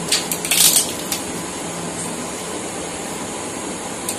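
Steady background hiss with a short burst of sharp crackles and clicks about half a second in, and two more brief clicks near the end.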